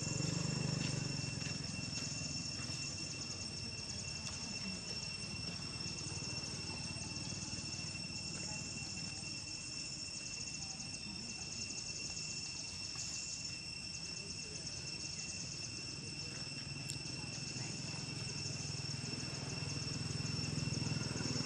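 Insect chorus: a steady high-pitched drone of two constant tones, with a faster pulsing buzz above them.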